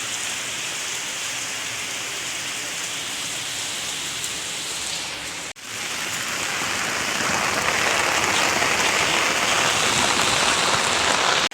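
Heavy rain pouring down in a steady hiss. It cuts out for an instant a little past halfway, then comes back somewhat louder.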